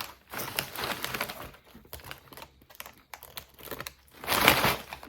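Crinkling of a Doritos chip bag as a hand rummages in it, with a louder burst of rustling a little after four seconds in.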